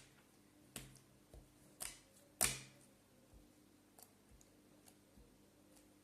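Slime being worked by hand, giving a few short sticky clicks and pops, the loudest about two and a half seconds in, then fainter ones.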